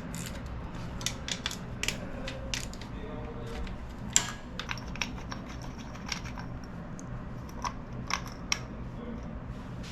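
Hand tools and small metal engine parts clicking and clinking during motorcycle engine work, with one louder knock about four seconds in, over a low steady hum.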